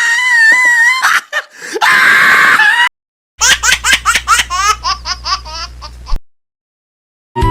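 Laughter: a run of quick, high-pitched bursts over a steady low hum that cuts off suddenly. It is preceded by a held, slightly wavering high tone.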